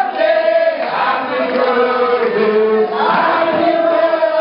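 A group of voices singing together, holding long notes.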